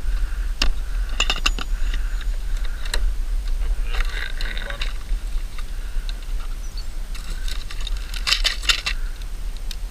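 Plastic tackle box being opened, its cantilever trays swinging out, then hands rummaging through the compartments. The handling makes a series of sharp clicks and rattles, busiest near the end.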